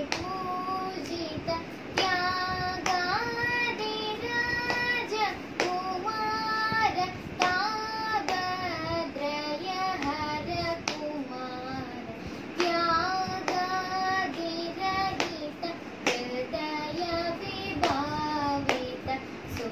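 A girl singing a Carnatic song solo with no instruments, holding long notes with sliding ornaments, while keeping the tala with sharp hand slaps and claps on her lap.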